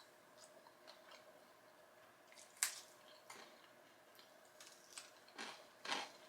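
A person chewing food quietly close to the microphone, with a sharp click about two and a half seconds in and two louder wet mouth sounds near the end.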